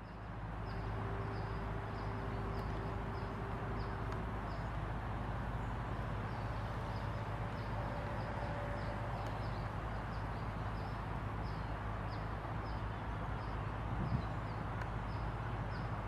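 Outdoor ambience: a steady low hum and hiss, over which a high, short, falling chirp repeats about three times every two seconds. A faint held tone sounds for a few seconds near the start, and another around the middle.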